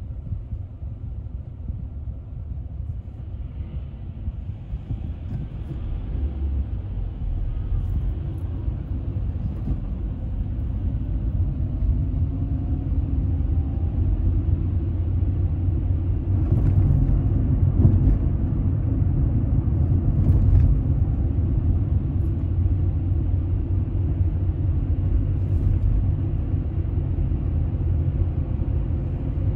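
Car driving, heard from inside the cabin: a steady low rumble of engine and tyre noise that builds as the car pulls away from a stop, then holds at a steady cruise.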